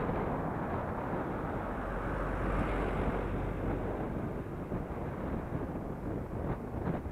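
Steady rushing wind noise on the camera microphone while riding along a road, mixed with tyre and traffic noise.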